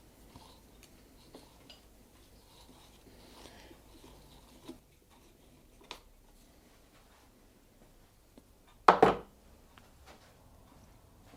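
Faint clicks and scrapes of a 15 mm open-ended spanner working a bicycle pedal off the crank, with one loud double metal clank about nine seconds in.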